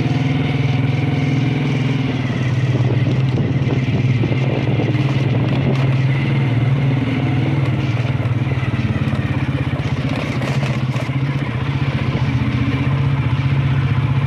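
Motorcycle engine running steadily on the move, heard from the seat of the bike.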